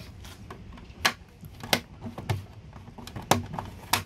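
Handling noise of a mains cable being fed into a plastic electrical enclosure: about half a dozen sharp clicks and taps at irregular intervals, the loudest about a second in, about three seconds in and near the end.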